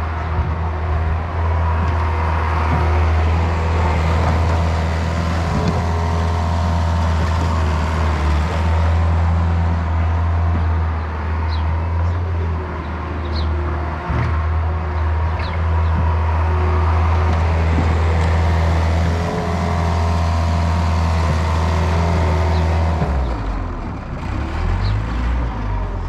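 A vehicle's engine running steadily with a low drone, which breaks up and drops near the end.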